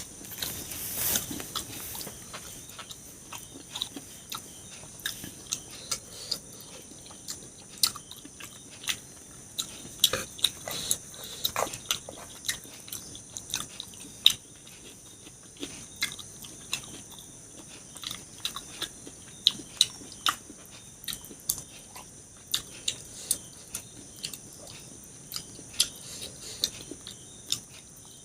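Close-miked eating: chewing and mouth smacks with many irregular sharp clicks.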